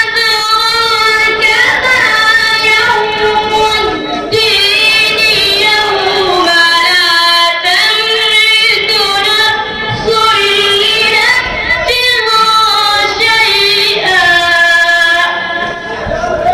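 A boy reciting the Qur'an in melodic tilawat style, holding long notes with wavering, gliding pitch ornaments and breaking off briefly for breath a few times. The phrase ends shortly before the close.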